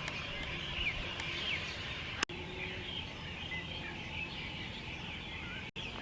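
Many small birds chirping and twittering together over a steady low background rumble. A sharp click comes about two seconds in, and the sound drops out briefly near the end.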